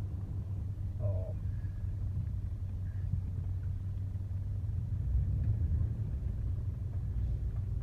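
Low, steady rumble of a vehicle driving slowly, heard from inside the cab.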